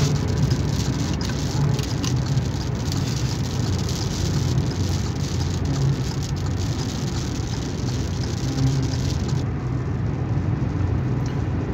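Steady road and wind noise inside a car driving at highway speed, with scattered light ticks of raindrops on the glass.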